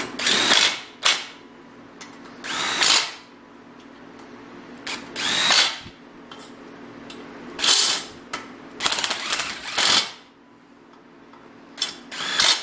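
Bostitch 18-volt cordless impact driver running in about seven short bursts of hammering, each spinning up then rattling for under a second to about a second, as it drives the head bolts of a small engine down tight.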